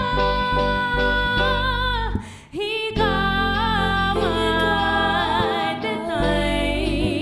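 Live rock band playing: a female lead voice singing sustained notes with vibrato over electric guitar, bass guitar and keyboard, with other band members joining in on vocals. The music drops out briefly about two seconds in, then comes back.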